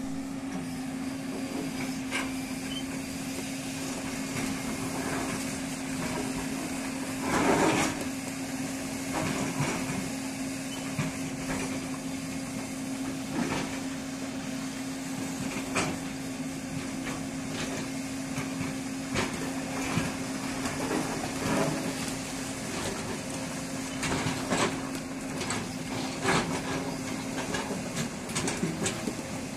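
Hydraulic excavator's diesel engine running at a steady pitch, with irregular knocks and clanks throughout as the machine climbs and works stones. The loudest clatter comes about seven seconds in.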